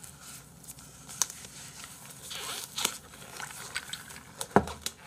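Scattered light rustles and clicks of table-top handling, with one sharp thump about four and a half seconds in as a plastic drink cup is set down on the table.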